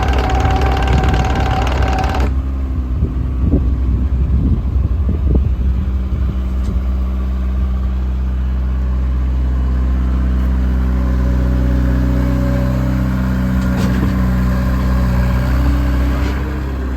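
JCB 55Z-1 midi excavator's diesel engine running with a steady low drone. A higher whine and rush over it cut off abruptly about two seconds in, leaving the engine running on its own.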